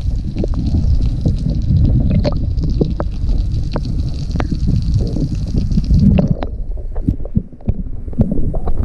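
Seawater heard through a submerged camera: a dense, muffled low rumble with many scattered clicks and ticks. A little after halfway the high hiss drops away, and by the end the camera is at the choppy surface.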